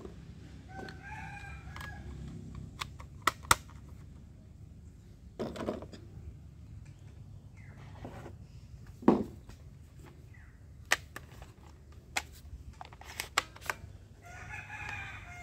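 A rooster crowing twice, about a second in and again near the end. Between the crows come sharp plastic clicks and snaps from toy dart guns being handled and cocked, the loudest snap about nine seconds in.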